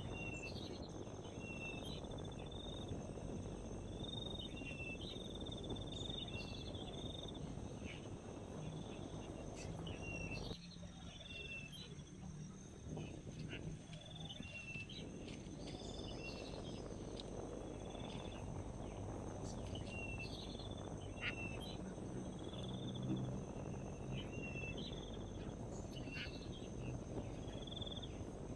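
Outdoor insect chorus: a steady high buzzing of crickets, with short high chirps repeating every second or so over a low rumble of background noise that drops abruptly about ten seconds in.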